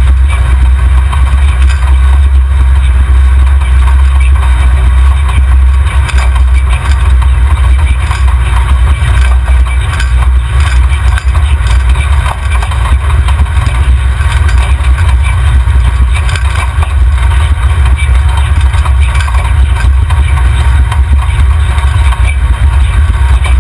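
Off-road race buggy's engine idling: a loud, steady low rumble.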